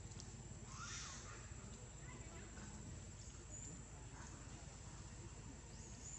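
Faint outdoor ambience among trees: a steady high-pitched whine with a few brief chirps or squeaks, the loudest about a second in.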